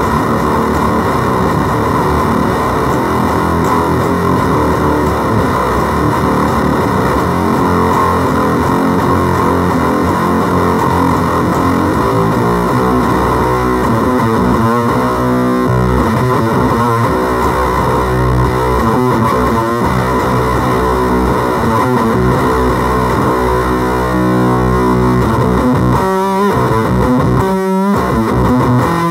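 Electric guitar played through a FOWL Sounds Octagram Fuzz pedal and amplifier, with a heavily distorted fuzz tone. For about the first twelve seconds it is a dense, smeared wash. After that it turns to clearer held notes and chords, with short choppy strums near the end.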